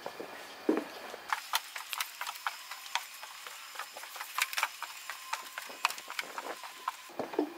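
Footsteps going up wooden stairs and onto a wooden deck: an uneven run of knocks, several a second.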